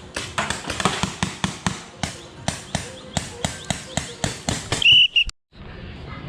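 Paintball markers firing a rapid string of sharp pops, about five a second, followed about five seconds in by two short, loud blasts on a referee's whistle, the signal that ends the round.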